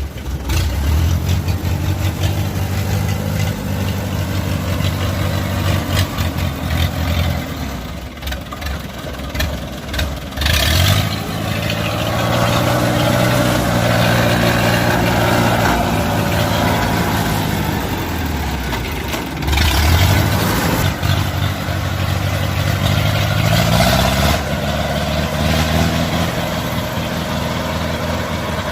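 Kubota rice combine harvester's diesel engine running steadily, its pitch shifting up and down a few times as the machine works, with louder surges about a third of the way in and again past the middle.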